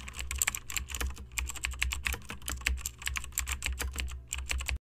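Computer keyboard typing sound effect: rapid, irregular key clicks over a low steady hum, matching the caption text typed onto the screen.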